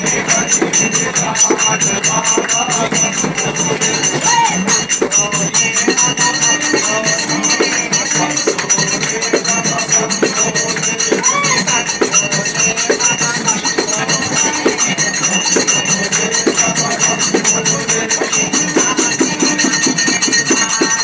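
A group of men singing a Hindu devotional kirtan to Shiva, led by one voice, over a fast, steady beat of hand clapping and jingling, rattling hand percussion.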